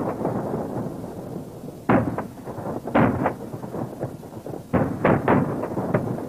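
Gunfire: sharp shots in irregular groups, one about two seconds in, a pair around three seconds, and a quick run of several near the end, each trailing off in a rolling echo.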